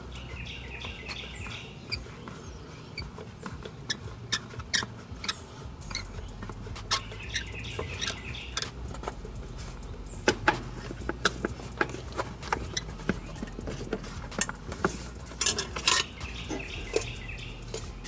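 Screwdriver turning the worm screw of a worm-drive hose clamp on a Kubota L3240 tractor's upper radiator hose at the thermostat housing: irregular small metallic clicks and ticks, busier from about four seconds in, loudest about ten seconds in. A bird calls briefly three times.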